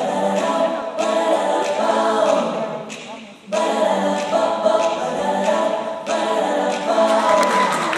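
Recorded choir singing a cappella, several voices in harmony. It fades and pauses briefly about three seconds in, then comes back at full strength.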